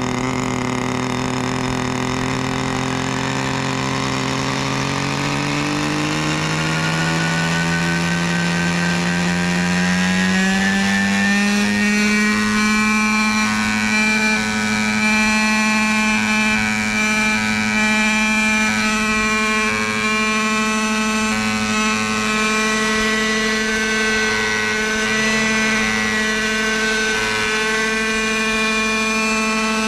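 OS Max 45 FSR two-stroke glow engine of a Hirobo Falcon 555 model helicopter spooling up, its pitch rising steadily for about ten seconds as the rotor comes up to speed, then running steadily at flying speed as the helicopter lifts into a low hover.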